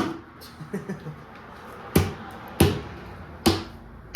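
Four sharp knocks on metal, each with a short ring, with a few light clicks between the first two, as parts are struck or set down during a V8 engine teardown.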